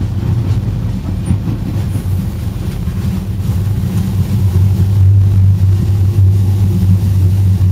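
Steady low rumble of a moving vehicle heard from inside, getting a little louder about five seconds in.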